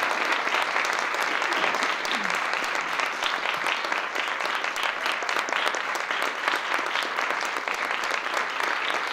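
Audience applauding steadily, a dense patter of many hands clapping, with one short falling cry from the crowd about two seconds in.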